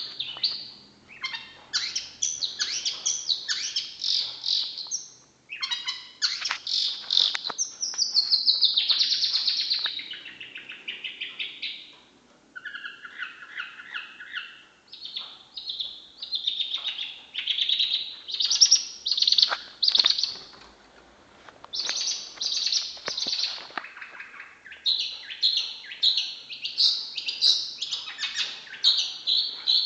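Long-tailed shrike (cendet) singing a rapid, varied song of chirps and whistles in phrases, broken by a few short pauses.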